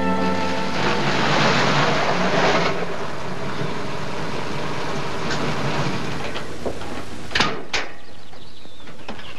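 A car's engine running, with a steady low rumble that cuts off about seven seconds in, followed by two sharp clicks like a car door latch opening.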